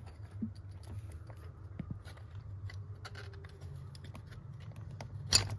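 Faint clicks and light metallic scrapes from a hand threading the metal housing of a Yanmar 3GM30F diesel's secondary fuel filter back onto the filter head, with one louder scrape about five seconds in, over a low steady hum.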